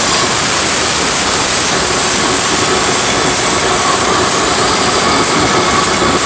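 Electronic dance music over a club sound system, a loud dense wash of noise with no clear beat, as in a build-up or breakdown.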